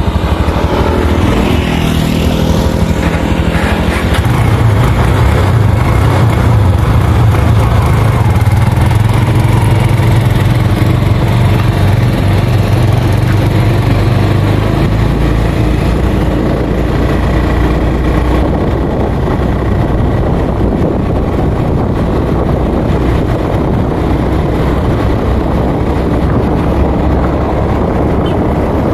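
Motorcycle engine pulling away, its note rising over the first few seconds, then running steadily at road speed.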